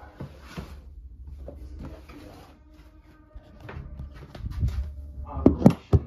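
A towel rubbing over the top of a washing machine in a few short strokes, with handling knocks and a few loud knocks about five and a half seconds in.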